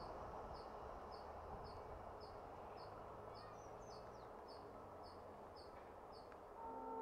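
Quiet outdoor ambience: a faint high chirp repeats evenly about twice a second over a low, steady background hum. Near the end a steady tone with several pitches begins and holds.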